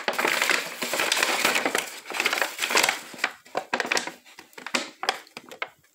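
Close rustling and crinkling handling noise right at the microphone, dense at first and thinning into scattered small clicks over the last couple of seconds.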